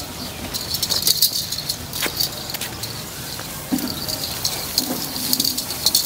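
Small ankle bells on a bull's legs jingling and rattling in quick, irregular clusters as the bull is led walking.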